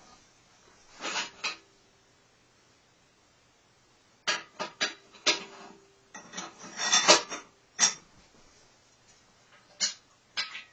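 Metal clanks, clicks and a rasping scrape from a long steel bar or wrench working against a bare Nissan VQ30DE V6 engine and its mounting. They come in irregular bursts, about a second in, again from about four seconds on, loudest around seven seconds, and twice near the end.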